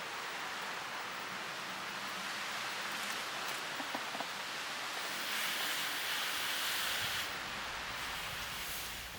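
Wood fire in a fire pit burning with a steady hiss and a few faint crackles; the hiss grows louder for about two seconds past the middle.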